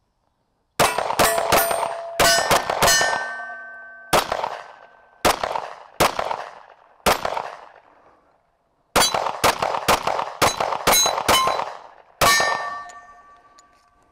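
Live Free Armory AMP 9mm pistol firing about twenty shots, in quick strings with slower single shots between, with a pause of about a second midway. Hits on steel plate targets ring on after several of the shots.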